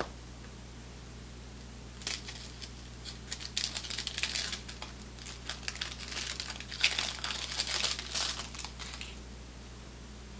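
Paper wrapper of a 1988 Topps Big Baseball Cards pack being torn open and crinkled by hand: a stretch of sharp crackling that starts about two seconds in and stops near the end.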